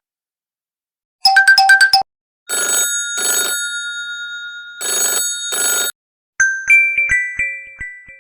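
Huawei Honor 9A ringtones played in turn. First comes a short run of rapid electronic beeps. Then a two-part ring sounds twice, its tone fading in between. About six seconds in, a new tune of bright chime notes starts, each note dying away.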